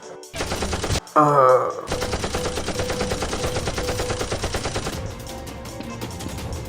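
A brief shout about a second in, then rapid automatic gunfire for about three seconds, which drops to a quieter background near the end.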